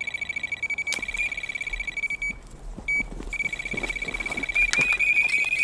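Electronic carp bite alarm sounding a 'one-toner': a high, rapid, near-continuous beep as a carp runs off with the bait and pulls line from the spool. The tone breaks off briefly near the middle and then runs on, stepping up slightly in pitch later, with a few knocks and rustles underneath.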